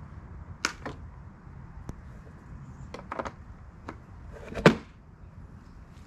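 Hands clicking and knocking on the clear plastic top cover of a Ryobi lawn mower: a few scattered sharp clicks, then one louder thump a little past two-thirds in.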